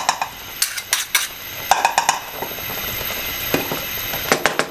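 Cooking utensils clinking and scraping against a metal wok while a thick sauce is stirred. The clicks come in quick runs, several times over.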